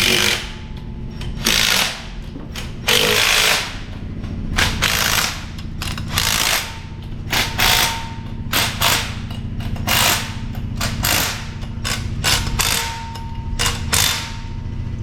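Shop power tool worked in repeated short bursts of varying length, over a steady machine hum.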